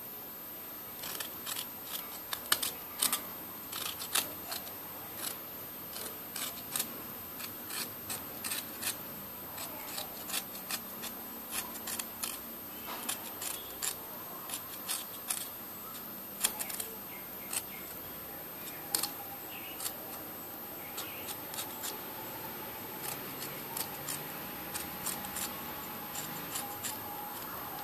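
Kitchen knife shaving the skin off a raw potato: short crisp scrapes, irregular, one to three a second, with a lull in the middle.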